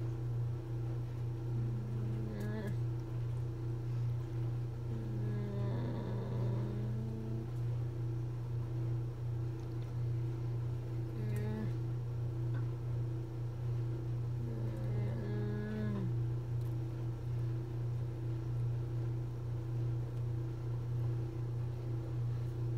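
A young woman's short wordless vocal sounds, four or five of them with pauses between, some sliding in pitch, over a steady low electrical hum.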